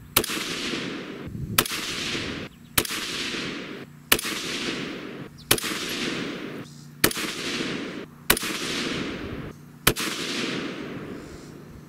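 6.5 Grendel AR-15 rifle with a muzzle brake firing eight shots, about one every one and a half seconds. Each sharp crack is followed by an echo that dies away over about a second.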